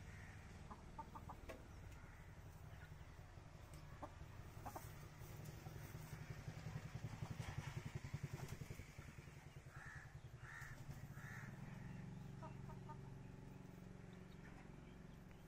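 Chickens clucking faintly, three short clucks about ten seconds in, over a low steady rumble.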